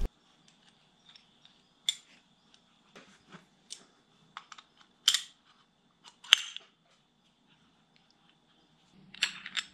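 Small metal parts of a tractor distributor clicking and clinking as the reassembled timing-advance mechanism on its shaft is test-fitted into the distributor housing by hand. A few separate sharp clicks, the loudest about five and six seconds in, and a quicker run of clicks near the end.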